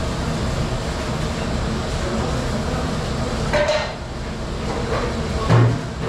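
Steady rumble of commercial dish-room machinery and running water, with dishes and metal pans clattering about three and a half seconds in and a heavy knock near the end.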